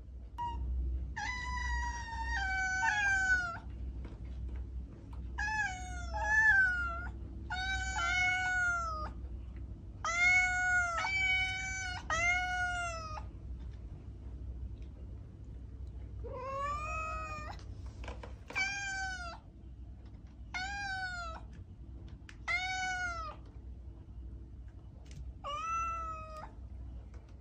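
A cat meowing over and over: about a dozen drawn-out meows, some in quick runs of two or three, with pauses of a few seconds between the runs.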